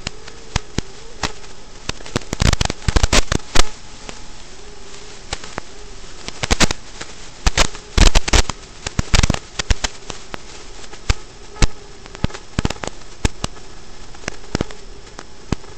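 Sharp crackling pops in irregular clusters, some quick runs of several together, over a faint steady wavering hum.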